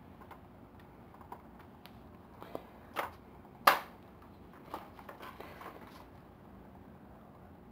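Scattered light clicks and knocks from handling a plastic airsoft rifle, the loudest a single sharp click a little under four seconds in, with a few softer ones after it.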